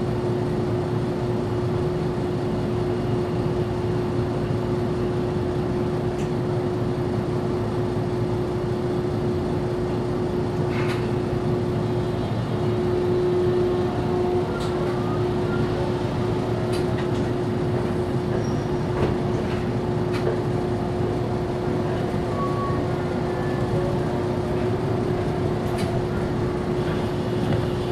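Inside the cabin of a Toyohashi Railway 780-series tram: a steady hum with one constant tone, and a few faint clicks and knocks.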